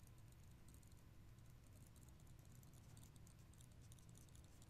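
Near silence: faint, irregular light ticks of a stylus tapping and sliding on a tablet or pen-display surface while writing, over a low room hum.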